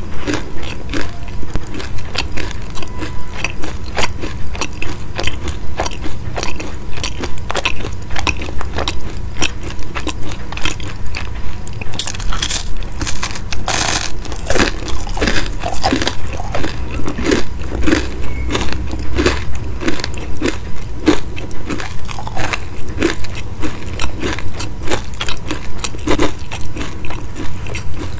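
Close-miked chewing of a crisp baked pastry with a meat filling: steady crunches about twice a second, with a louder crunch of a fresh bite about halfway through.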